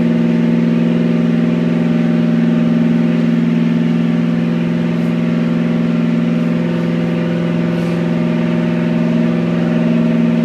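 Carburetted Holden 308 V8, stroked to 355 cubic inches, running on an engine dynamometer and held at a steady 2,500 rpm or so. The note is even and does not change.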